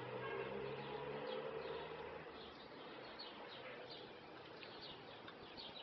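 Small birds chirping: many short, high chirps over a low steady hum that fades after about two seconds.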